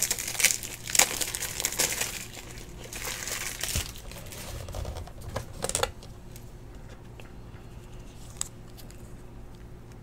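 Plastic wrapper on a pack of toploader card holders being torn open and crinkled, densely for about the first six seconds, then dying down to a few light clicks as the rigid plastic holders are handled.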